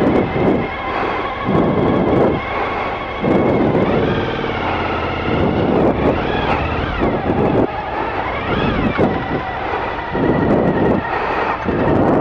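Suzuki V-Strom 1000's V-twin engine running, its revs rising and falling briefly three times.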